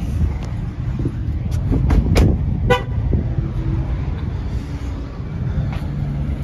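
A short car horn toot almost three seconds in, just after a thump, over a steady low rumble of outdoor parking-lot noise and wind on the microphone.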